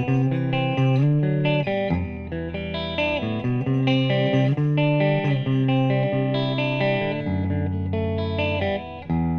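Oscar Schmidt OE20 Les Paul-style electric guitar, both humbucking pickups selected, played clean through a VOX VT40X amp: chords and notes ringing out, changing about once a second. The strings are the guitar's original, somewhat dead ones.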